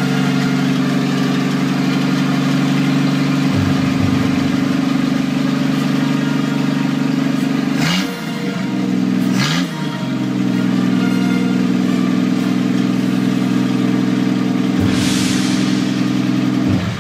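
Freshly restored M29C Weasel's Studebaker Champion six-cylinder flathead engine, just brought back to life, running smooth and steady. Twice, about eight and nine and a half seconds in, there is a sharp click and the engine speed dips briefly and picks back up. The engine stops near the end.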